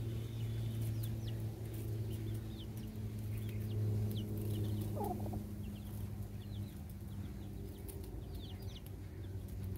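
Chick peeping again and again in short, high, falling notes, with one lower call from the hen about five seconds in, over a steady low hum.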